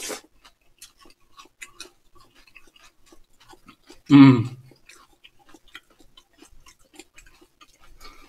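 Spoons clinking and scraping in bowls, with faint chewing and eating sounds as two people eat spoonfuls from their bowls. About four seconds in, one of them makes a short loud voiced sound like a hum.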